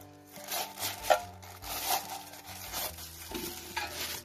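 Thin plastic bag crinkling and rustling in the hands in irregular bursts as it is pulled open and crumpled.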